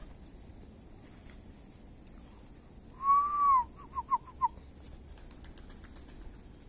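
A person whistling to the pigeons: one long note that rises a little and falls, then four short quick notes. Faint scattered clicks run underneath.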